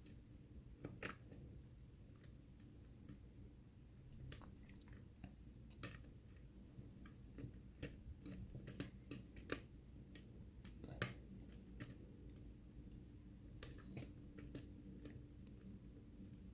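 Faint, irregular small metallic clicks and ticks from a hook pick and tension wrench working the spring-loaded pin tumblers of a six-pin challenge lock fitted with security pins, the pick tapping and catching on pins and warding as the tension is eased. A few clicks stand out, about a second in, near the middle and past two-thirds of the way.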